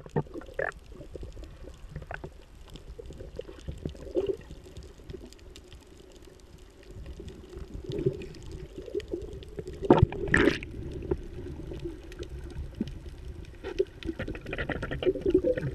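Underwater audio picked up by a camera submerged in the sea: muffled, continuous water noise with scattered crackles, and a louder burst of water noise about ten seconds in.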